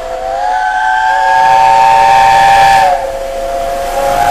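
The three-chime whistle of LNER A4 Pacific 60007 Sir Nigel Gresley blowing a long chord of several notes together. It sags a little in pitch and loudness about three seconds in, then sounds strongly again near the end.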